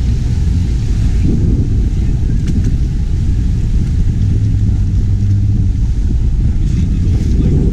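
Speedboat's engines running at cruising speed: a loud, steady low rumble that swells a little about halfway through.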